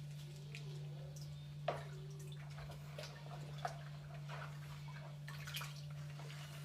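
Small clicks and clinks of kitchen utensils, with a sharper click about two seconds in and another a couple of seconds later, over a steady low hum.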